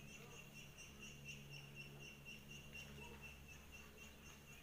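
Faint, high-pitched trilling call of a small animal: a rapid, even pulsing of about four or five beats a second, held for several seconds without a break. A low steady hum runs beneath it.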